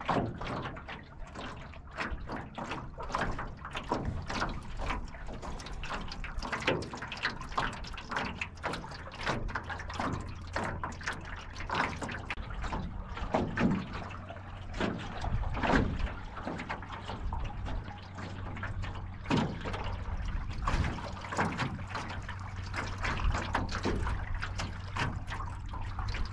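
Water slapping and splashing irregularly against the aluminium hull of a Grumman Eagle 15 canoe under sail through small waves, over a steady low rumble.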